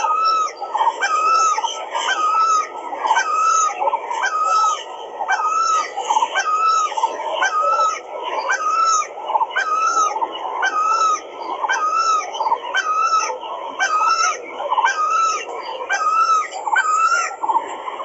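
Birds calling in a fast, evenly repeating pattern, a little more than one call a second, without a break.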